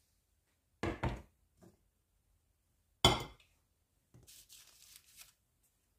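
Kitchenware being set down on a countertop: a double knock about a second in, then a sharper, louder clunk about three seconds in as a stainless steel saucepan is put down, followed by a soft rustling.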